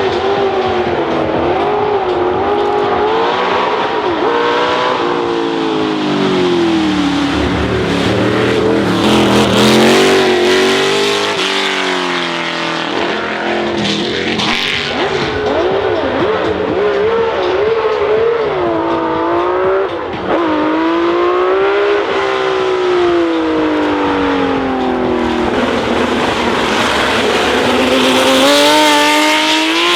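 Historic Formula 1 racing car engines running hard, revving up through the gears: the pitch climbs and drops back at each upshift, again and again.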